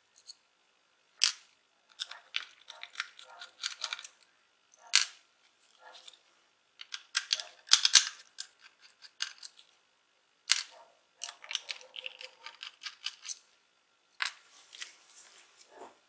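Small screwdriver backing out the screws of a laptop hard drive's mounting bracket: irregular light clicks and scrapes of metal on metal, with a few sharper ticks as screws are set down on the laptop's plastic base.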